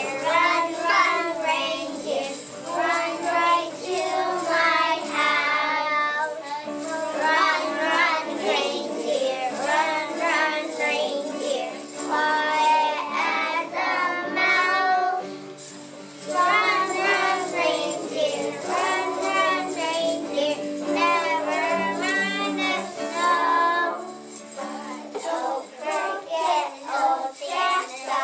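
A group of young children singing a Christmas carol together, with jingle bells jingling along. The singing pauses briefly twice.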